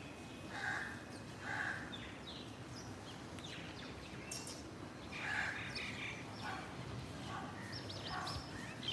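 Faint, scattered high bird chirps over quiet outdoor background noise.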